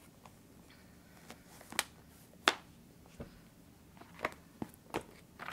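Paper notebooks being handled: several short, sharp taps and flicks of pages and covers, the loudest about two and a half seconds in.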